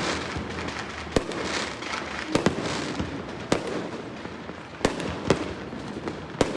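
Fireworks going off: about seven sharp, irregularly spaced bangs over a steady hiss of further fireworks.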